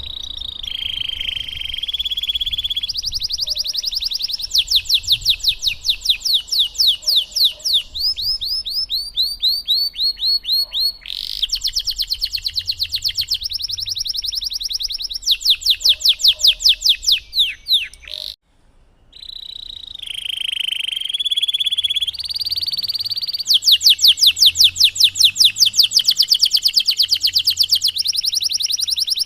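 Domestic canary singing a long, loud song of fast trills and rolls, switching to a new phrase of rapidly repeated notes every second or two. The song breaks off for under a second about eighteen seconds in, then resumes.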